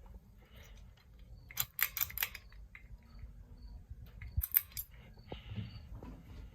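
Hampton Bay Huntington II ceiling fan running on medium speed with a low steady hum, broken by two short clusters of light metallic clicks and jingles, one about a second and a half in and another about four and a half seconds in.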